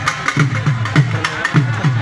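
Dhol barrel drum played in a steady, fast rhythm: deep bass-head strokes that drop in pitch, about three a second, with sharp cracking stick strokes on the treble head in between.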